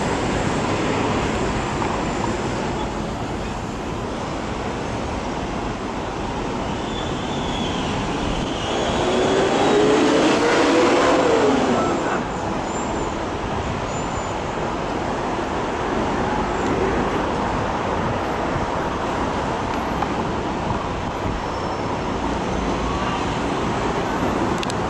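R-32 subway train pulling out along the elevated steel structure: a steady rumble of wheels on rail, with a rising and then falling whine that swells loudest about ten seconds in, mixed with street traffic noise.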